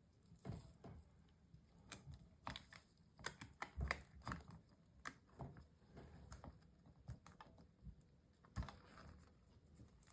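Faint, irregular small clicks and taps from hands working on an opened MacBook Pro and its parts, with the loudest tap about four seconds in.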